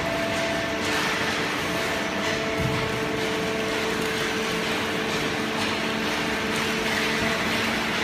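Automatic horizontal hydraulic waste-paper baler and its infeed conveyor running: a steady machine hum with a few held tones over a constant noisy wash.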